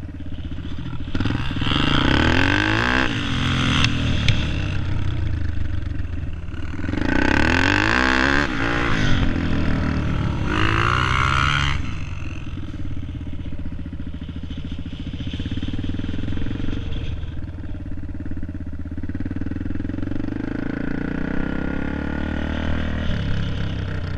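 Dirt bike engine heard from on board, revving up in three hard surges in the first half and easing off between them, then running more steadily at lower revs through the second half.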